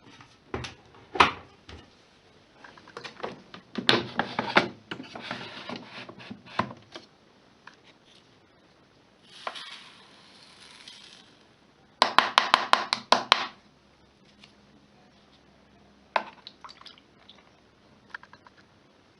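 Clicks, knocks and rattles from a front-loading washing machine being handled and set up. There is a busy stretch of knocking a few seconds in, a short hiss, then a quick run of about eight evenly spaced clicks, and a brief faint hum near the end.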